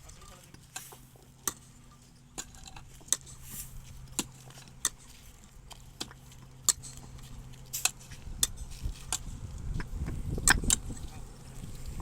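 Concrete paver blocks clacking as they are set against one another, sharp separate knocks at an irregular pace, over a steady low hum. A low rumble builds over the last few seconds.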